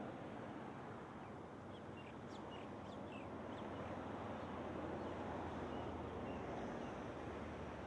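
Steady outdoor background noise, with a cluster of short bird chirps about two to four seconds in.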